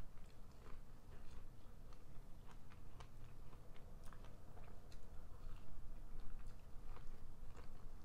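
Close-up chewing and biting of corn on the cob: many small, irregular clicks and crunches.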